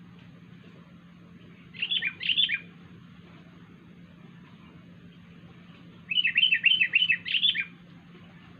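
Sooty-headed bulbul (kutilang) calling: a short burst of chirps about two seconds in, then a longer run of quick, falling notes from about six seconds to nearly eight.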